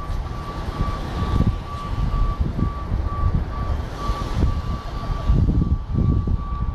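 An electronic beeper sounding a long run of evenly spaced beeps at one steady, fairly high pitch, over a low rumbling noise.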